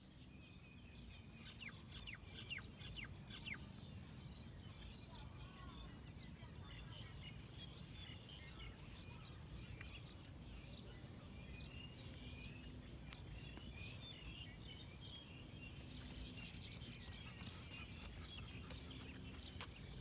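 Small birds chirping faintly with many short calls, a quick run of denser chirps about three-quarters of the way through, over a low steady background rumble.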